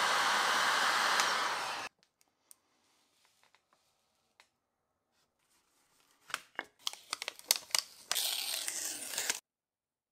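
Hot-air gun blowing steadily, heating an acrylic strip for bending, then switched off about two seconds in. A quick run of clicks and taps follows as the strip is handled, and the heat gun blows again for a second or so near the end.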